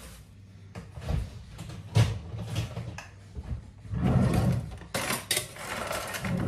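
Kitchen handling noises: a series of knocks and clatters as things are picked up, moved and set down on the counter, with a louder, longer clatter about four seconds in.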